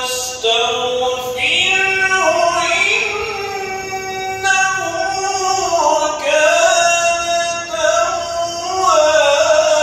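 A single voice chanting a long, ornamented melodic line in the style of Islamic chant, with held notes that slide and waver in pitch.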